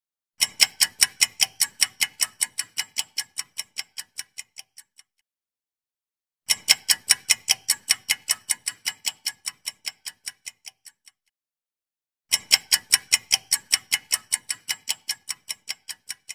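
Ticking countdown-timer sound effect, about four ticks a second. It plays three times, each run starting loud and fading away over about four and a half seconds, with short silences between.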